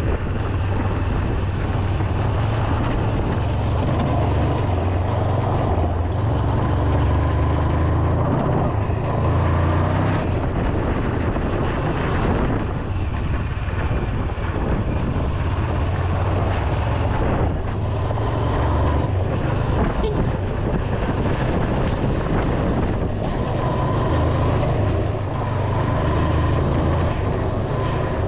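Honda CB500X parallel-twin motorcycle engine running steadily while riding, mixed with wind noise.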